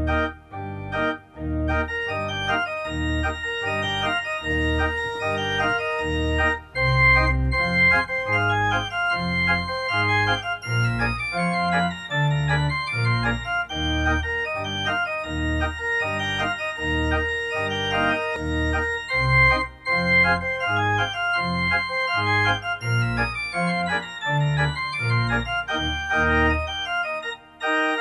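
Instrumental organ music played over the end of the service, with a walking bass line under held chords. Quick scale runs sweep down and back up twice, once near the middle and once near the end.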